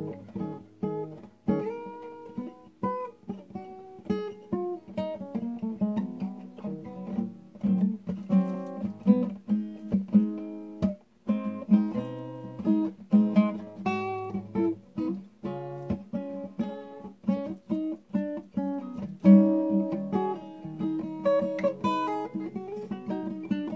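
Solo acoustic guitar improvising in a jazz style: plucked melody notes over chords and bass notes. The playing stops briefly about eleven seconds in.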